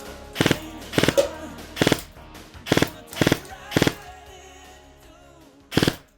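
Airsoft electric gun with a GATE EON gearbox firing seven short bursts of a few rapid shots each, spaced about half a second to a second apart, with a longer pause before the last one. Background music plays underneath.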